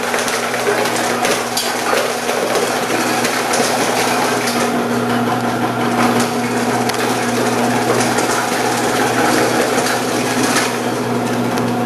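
Omcan HLC 300 vegetable cutter's motor running with a steady hum while carrots are pushed down the side chute and crunched into thin slices by the 2 mm slicing disc, a continuous crackling over the hum.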